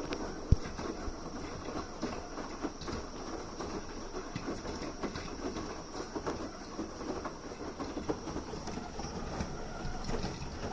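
Beko AquaTech washing machine running, with a continuous rattling clatter of irregular small clicks and one sharp knock about half a second in. The owner finds the motor noise odd for such a small load.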